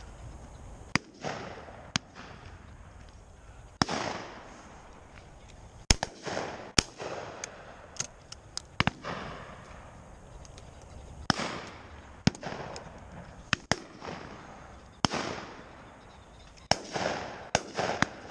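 Shotguns firing at game birds: about fifteen shots spaced irregularly, some sharp and loud, others fainter, several coming in quick pairs, each trailing off in a rolling echo.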